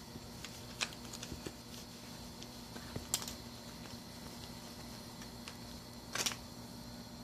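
Three sharp clicks about three seconds apart, about a second in, about three seconds in and about six seconds in, with a few softer ticks between them, over a faint steady hum.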